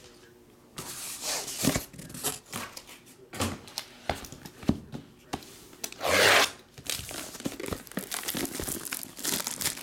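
Plastic wrapping torn and crinkled off a trading-card box, in irregular rustles and crackles, with one louder rip about six seconds in.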